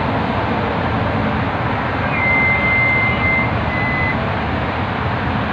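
Steady rush of highway traffic passing below. A thin, high, steady tone sounds for about two seconds just past the middle, with a short break.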